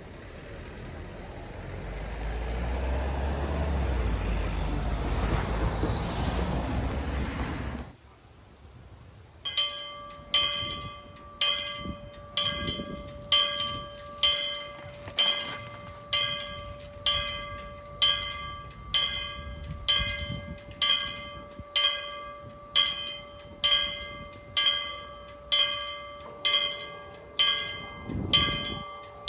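A vehicle passing with a rising low rumble that breaks off after about eight seconds. About a second later Danish level-crossing warning bells start ringing, a steady stroke about once a second, each strike leaving a ringing tone.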